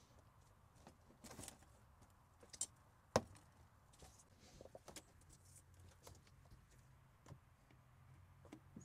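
Faint scattered clicks, taps and rubbing as a ribbed rubber air intake hose is handled and worked back onto the throttle body, with one sharper click about three seconds in.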